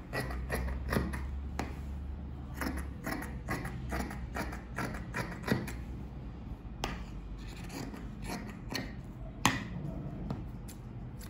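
Large tailor's shears cutting through cotton-viscose fabric on a table, the blades closing again and again in short snips with clicks from the pivot. A sharper click comes about nine and a half seconds in.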